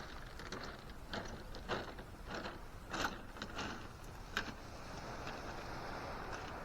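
A run of irregular sharp clicks and clatters, like gear being handled, then a steady hiss over the last couple of seconds.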